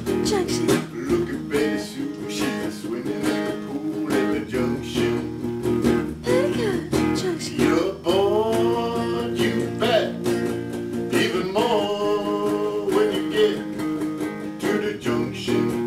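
Electric guitar being strummed, with frequent chord strokes and held notes that bend upward in pitch a couple of times.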